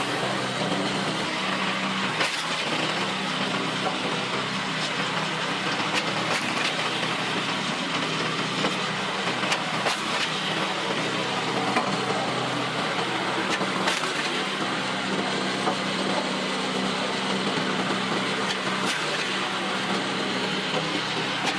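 Gas engine of a 30-ton kinetic log splitter running steadily while logs are split, with wood cracking and splintering and a few sharp cracks here and there.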